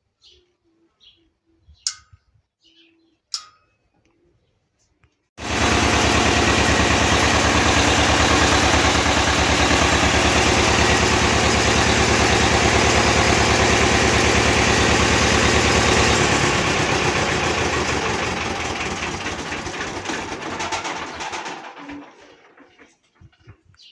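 A motor switches on suddenly about five seconds in and runs steadily. Then it slows and winds down to a stop near the end.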